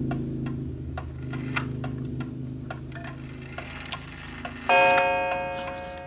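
Waterbury oak wall clock ticking steadily, with a low ringing fading away over the first seconds. About three-quarters of the way through, its gong strikes once for one o'clock and rings on, slowly dying away.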